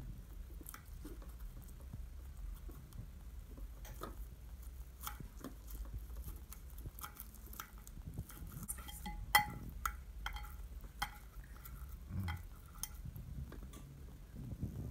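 Knife and fork cutting grilled chicken in a white oven dish: faint scrapes and light clinks of the cutlery against the dish, with a sharper clink about nine seconds in.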